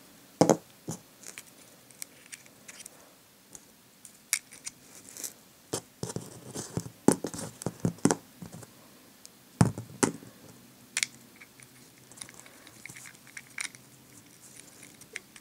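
Small metal planet gears and a washer clicking, tapping and scraping as they are dropped by hand into a cordless drill's planetary gearbox, a ring gear inside a plastic housing. The clicks are irregular, a few of them sharper and louder.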